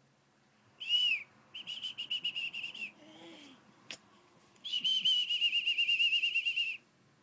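High whistling: a short note that rises and falls, then a fast-warbling trill, and after a pause a longer warbling trill of about two seconds.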